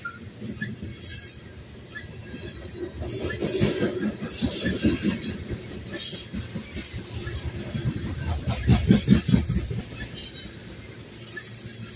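Freight train of covered hopper cars rolling past close by: steel wheels rumbling and clacking over the rail joints in groups as each set of trucks goes by, with short high-pitched bursts of wheel noise about once a second.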